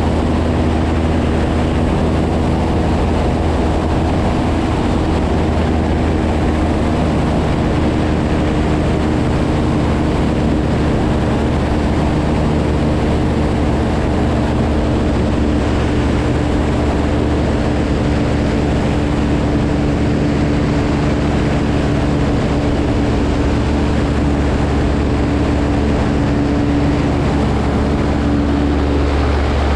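Seamax amphibious light airplane's engine and propeller running, a loud, steady drone that holds its pitch, shifting slightly near the end.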